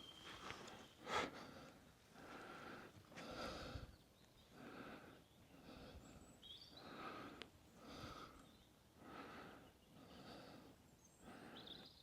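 A person breathing heavily and faintly, about one breath sound a second in an even rhythm. A few short bird chirps come through, near the start, midway and near the end.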